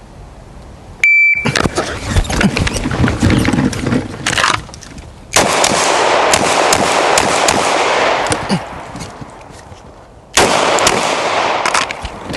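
Shot timer beeps once, briefly, about a second in, then a semi-automatic pistol fires rapid strings of shots over most of the following seconds, with a short lull near the middle.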